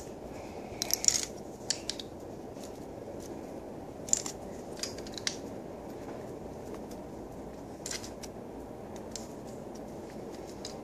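Plastic Lego bricks clicking as they are handled and pressed together: scattered sharp clicks, a quick cluster about a second in and more around four to five seconds and near the end, over a steady low hiss.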